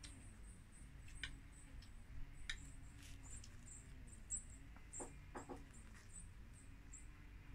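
Faint high-pitched chirping, a short chirp about twice a second, with a few soft clicks and two short louder sounds about five seconds in.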